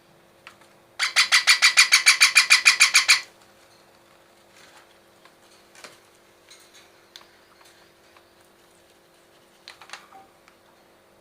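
Parrot chick giving a rapid run of harsh, evenly repeated calls, about eight a second for about two seconds, followed by a few faint clicks and scratches.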